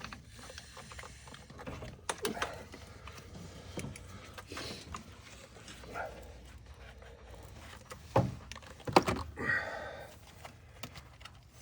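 Scattered light clicks and metallic clinks of hand tools working on bolts in the engine bay, with a few louder knocks and a brief metallic ring near the end.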